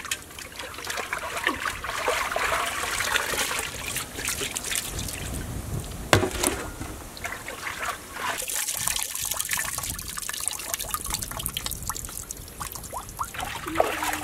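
Water trickling and dripping off wet whole fish onto a steel plate, with small wet ticks throughout and one sharp knock about six seconds in.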